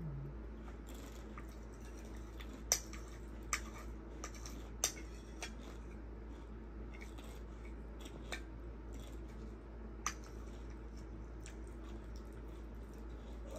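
Close-up eating sounds: about six sharp, crisp crunches or clicks, spaced unevenly over the first ten seconds, with fainter chewing and crackle in between.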